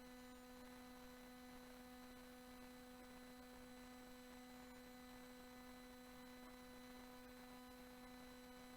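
Near silence with a faint, steady electrical hum made of several fixed tones, unchanging throughout.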